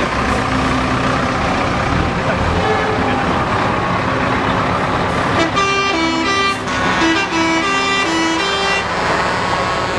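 Classic diesel lorries running as they drive past in a slow convoy. From about halfway through, a vehicle horn sounds a quick run of short notes at changing pitches for around three seconds.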